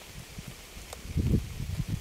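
Rain ambience: a steady high hiss of rain with uneven low rumbling surges, and a single sharp click about a second in.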